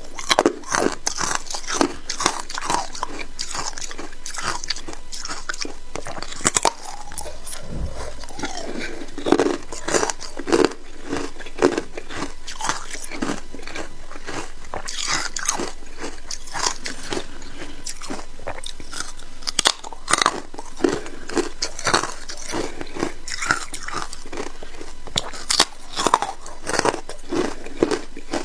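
A person biting and chewing ice: a continuous run of sharp, crisp crunches in quick clusters, with louder single bites every few seconds.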